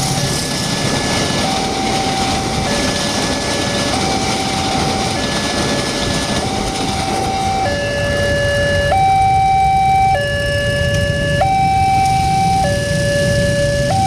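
Alkmaar-type railway level-crossing siren sounding its warning, alternating steadily between a higher and a lower note, each held a little over a second. It grows louder and clearer about eight seconds in.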